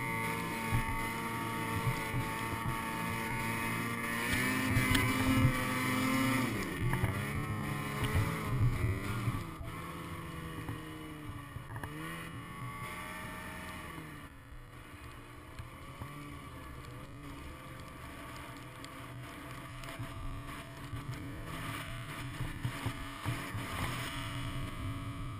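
Ski-Doo snowmobile engine running under load through deep powder, revving higher about five seconds in, then rising and falling in pitch as the throttle is worked. It eases off and goes quieter a little past the middle, and picks up again near the end.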